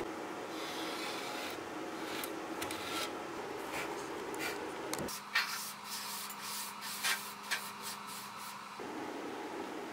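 Rubbing and scraping with scattered sharp clicks and knocks as a round mirror frame is handled on a workbench, its glass taken out, and the bench top brushed by hand. The sharpest click comes about five seconds in.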